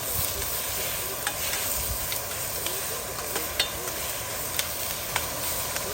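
Food sizzling in a frying pan while it is stirred, with a cooking utensil clicking against the pan several times.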